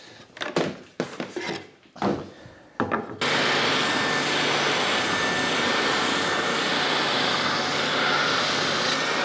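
A few short Japanese saw rasp strokes on a sapele board's curved edge. About three seconds in, an oscillating spindle sander starts running steadily, with a low hum and a faint high whine, as the curved edge is fed against its sanding drum.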